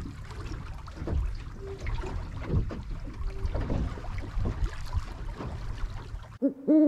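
Wind buffeting the microphone and sea water slapping and sloshing against a small boat's hull, with scattered knocks. Near the end the sound cuts out suddenly and a loud, clear hooting tone begins.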